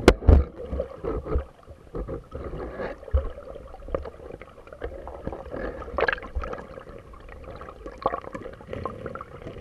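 Water sloshing and gurgling around a camera at or under the river's surface, with irregular knocks and splashes as the hunter moves through the water, over a faint steady hum.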